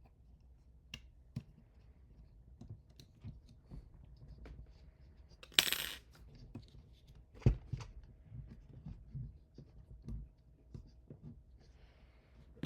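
Small hard parts and tools being handled on a workbench: scattered clicks and taps, a brief metallic jingle a little before halfway through, and a louder knock a couple of seconds later.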